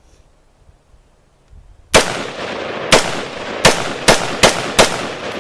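Near quiet, then about two seconds in a run of loud, sharp bangs starts, several a second at uneven spacing, over a continuous hiss.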